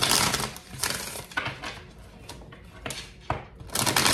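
A deck of tarot cards being shuffled by hand: irregular papery rustling and slapping of cards with a few sharp clicks, loudest at the start and again near the end.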